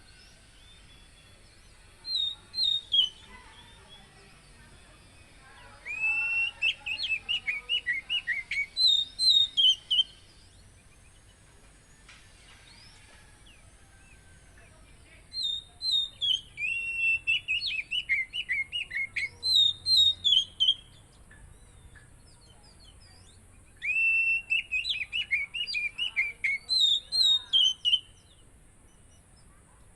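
Oriental magpie-robin (kacer) singing: four loud phrases of rapid, sharp whistled notes, each a few seconds long, with short pauses between them.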